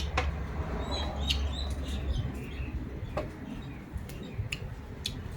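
Short bird chirps, with a few sharp clicks, over a low rumble that fades after about two seconds.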